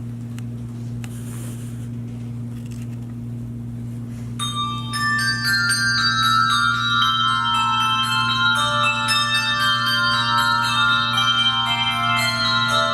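A handbell choir starts playing about four seconds in: many bells struck in quick succession, their clear notes ringing on and overlapping as more join. Before that there is only a steady low hum.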